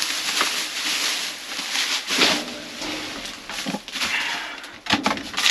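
Plastic trash bags rustling and crinkling as they are grabbed and shifted by hand, with irregular crackles throughout.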